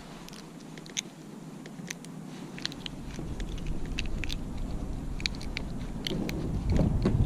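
Scattered sharp clicks and ticks at irregular intervals, with a low rumble building over the last second.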